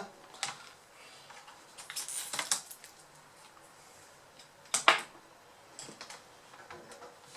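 Scattered light clicks and taps of a small screwdriver and fingers working on the plastic case of a Samsung R710 laptop, with one sharper click just before five seconds in.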